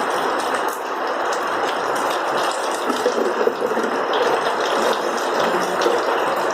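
Steady rush of water, like rain or a running hose, with a faint scattered clicking over it.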